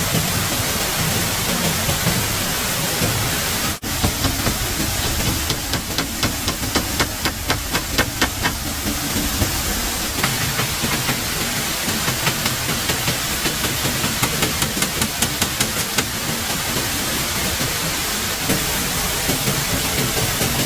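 Steady rushing hiss of water, broken by runs of quick, evenly spaced taps, about four a second, from about five to nine seconds in and again, fainter, from ten to sixteen seconds in. The hiss cuts out for an instant about four seconds in.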